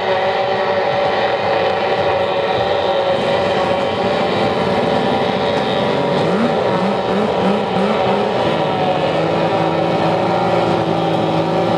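A pack of racing outboard boat engines running flat out together in a high, steady whine. A little past halfway comes a quick run of short rising revs as throttles come back on in the turn, then the engines settle into a steady pitch again.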